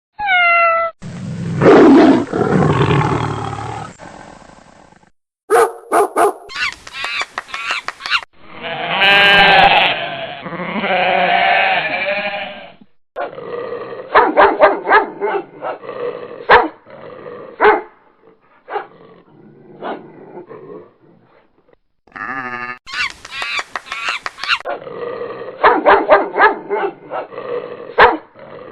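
A string of recorded animal sound effects played one after another, each starting and stopping abruptly. First comes a short falling cry, then a long, loud, rough call, then wavering pitched calls, and later two runs of dog barking.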